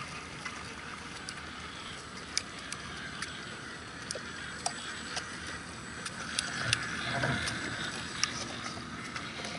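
Radio-controlled scale crawler truck creeping over a wooden plank bridge: a faint motor and gear whirr that grows louder about six to eight seconds in as it passes close, with many scattered sharp clicks and knocks from the tyres and chassis on the wooden slats.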